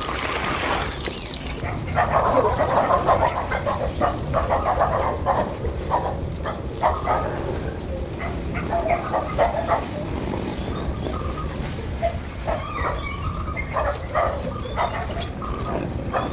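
A busy run of short animal calls, tagged as dog yips and barks, starting about two seconds in and coming in clusters. In the first second and a half there is a steady hiss of trickling water.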